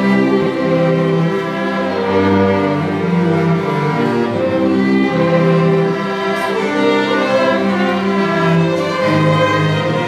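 A school string orchestra of violins, cellos and double bass playing a piece in smooth, held bowed notes that move every half second or so.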